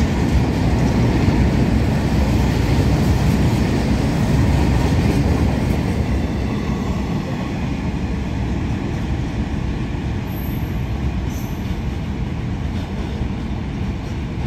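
A goods train's covered wagons rolling past, a steady rumble of steel wheels on rail that eases a little in the second half.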